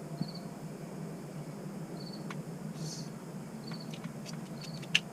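A cricket chirping, short pulsed chirps about once a second, over a low steady hum. A few light clicks, and one sharp click near the end that is the loudest thing.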